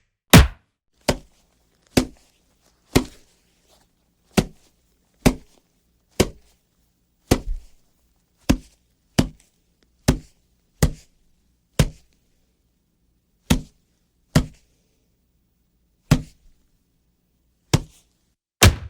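A string of punch sound effects: about seventeen single sharp hits, one every second or so with a few longer pauses, each a quick impact that dies away fast.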